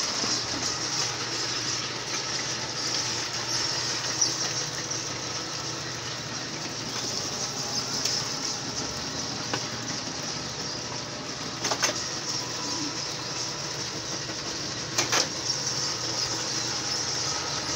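Belt-driven soil mixer running steadily as wet clay-soil is fed through it, its drive pulley turning, with a couple of sharp knocks in the second half.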